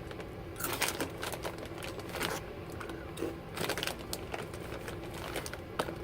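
Rustling and crinkling of a Hot Cheetos snack bag being handled, with irregular sharp crackles.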